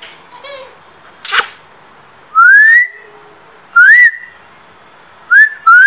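A person whistling to call a Shih Tzu puppy: four loud rising whistles, each sliding up and then holding a high note, the last two close together near the end. A sharp click comes about a second and a half in.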